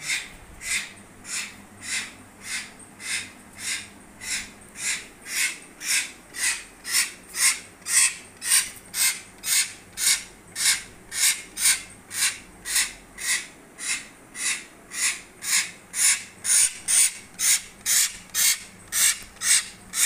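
Young hill myna begging with a steady run of short, harsh rasping calls, about two a second, quickening slightly and growing louder in the second half.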